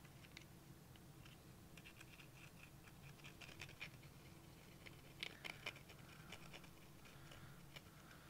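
Faint scratching and light clicks of small 3D-printed plastic parts being handled and fitted together while glue is applied, with a few sharper clicks a little past the middle.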